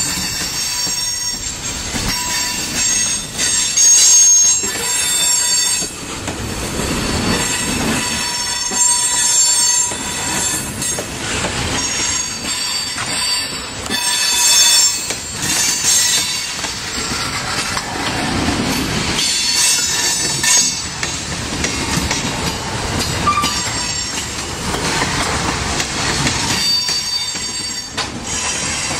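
Freight train of tank cars rolling past at close range, the steel wheels squealing against the rails in high steady tones that come and go, over the rumble and clatter of the cars.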